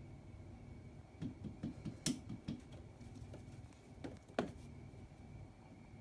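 Light taps and knocks of a pom-pom cat teaser against the plastic top of an air conditioner. A quick run of about six soft taps with one sharper click comes between one and two and a half seconds in, then two more knocks come around four seconds in.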